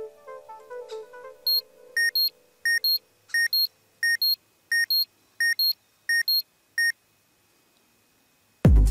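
Soundtrack audio: a soft melodic music phrase fades out, followed by a run of about nine identical short electronic beeps, evenly spaced at about one and a half a second. After a brief gap, electronic dance music with a heavy bass beat starts near the end.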